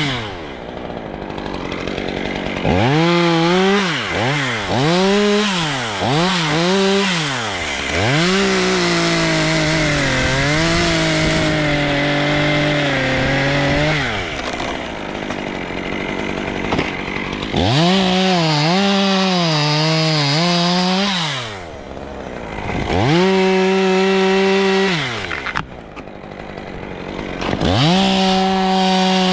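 Chainsaw cutting dry dead oak: the engine revs in quick blips, then holds a long cut of about six seconds with its pitch pulled down under load, drops back toward idle, and revs up again several times for further cuts.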